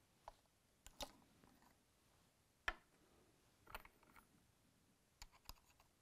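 Faint, scattered clicks and taps, about eight of them, from .308 brass cases being handled and primed in a handheld Lyman priming tool; the sharpest click comes a little under three seconds in.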